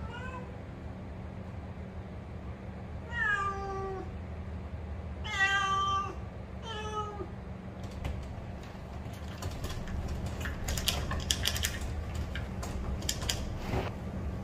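Domestic cat meowing three times, each call falling in pitch, the middle one loudest. In the second half, a scatter of sharp clicks and taps.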